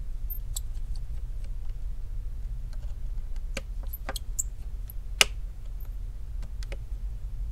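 Scattered small, sharp clicks and taps of gloved fingers handling the small metal and plastic parts inside an opened iPhone 11 Pro Max, with one louder click about five seconds in, over a low steady hum.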